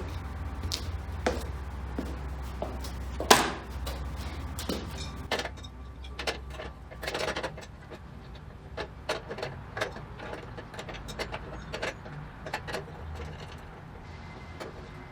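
Scattered clicks, knocks and rattles of a miter saw being handled and adjusted with a small wrench, with one sharp knock about three seconds in.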